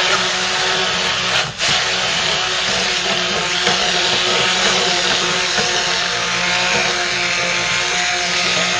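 Electric stick blender running submerged in raw soap batter of oils and lye solution, a steady motor whine churning the liquid as it is blended toward emulsion. The sound dips briefly about a second and a half in.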